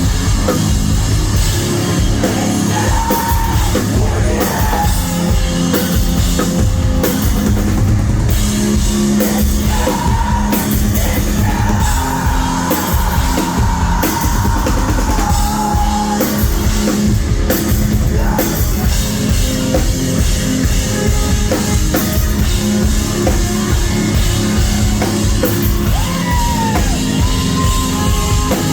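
Live rock band playing loud, with a pounding drum kit and yelled or sung vocals, recorded on a phone in the crowd.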